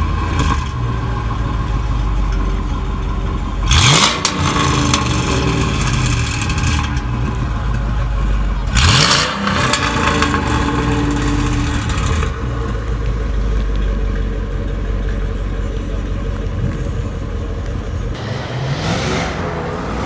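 Mercedes-Benz CL55 AMG's 5.4-litre V8 idling, revved sharply twice about five seconds apart, each rev rising quickly and falling back to idle. Near the end a different engine note takes over, rising and falling in pitch.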